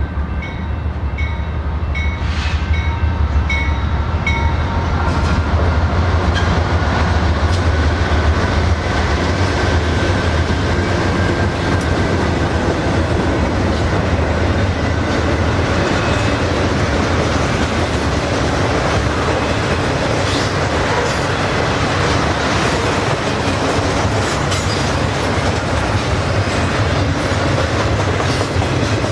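Diesel locomotives of a freight train passing with a deep engine rumble that builds over the first ten seconds, then a long string of loaded freight cars rolling by with steady wheel noise and clickety-clack over the rail joints. A bell dings at an even pace, about one and a half strikes a second, and stops about three seconds in.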